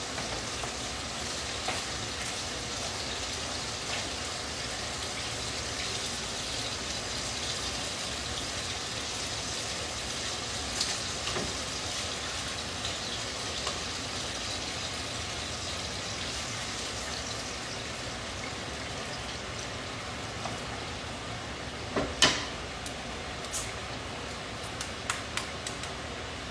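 Food sizzling in a frying pan, a steady hiss, with one sharp clack about 22 seconds in and a few lighter clicks near the end.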